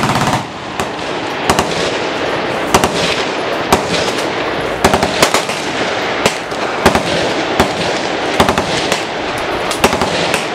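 Gunfire from many machine guns along a firing line. A sustained burst cuts off about half a second in, followed by irregular single shots and short bursts from different guns.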